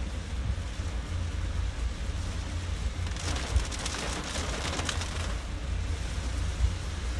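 Car driving in typhoon wind and heavy rain, heard from inside the cabin: a steady low rumble of road and wind noise, with a louder hiss of rain and spray on the car for about two seconds in the middle.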